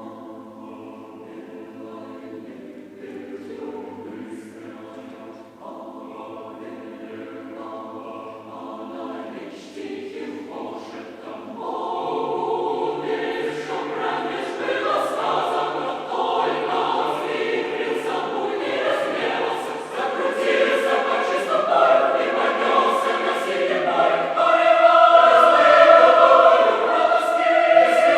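A choir singing in Russian, softly at first, growing much louder about twelve seconds in and swelling to its loudest near the end.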